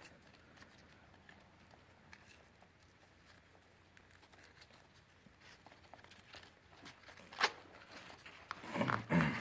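Faint rustling and scraping of webbing straps being threaded through a rucksack frame and pack, with a single sharp click about seven and a half seconds in.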